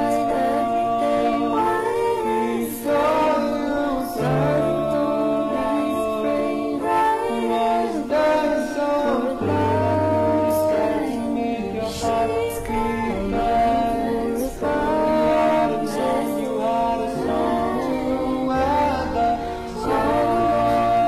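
Background music: a slow song with several singing voices in harmony over a low bass line.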